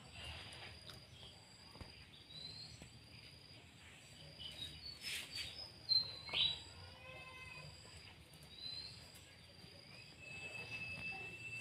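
Birds chirping in short rising calls, the loudest a little past halfway, over a faint steady high-pitched insect drone.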